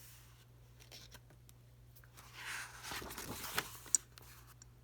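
A book page being turned: a soft rustle of paper lasting about a second, then a single sharp click near the end.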